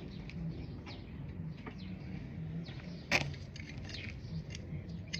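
Scattered light clicks and taps from hands working on the motorcycle, with one sharper click about three seconds in.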